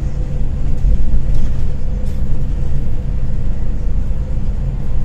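Steady low rumble of a moving coach heard from inside the cabin: engine and road noise.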